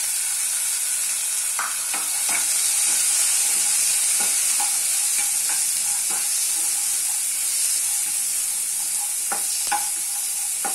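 Boiled red kidney beans sizzling in hot oil in a nonstick frying pan while being stirred with a spatula, a steady frying hiss with the spatula scraping and knocking against the pan now and then.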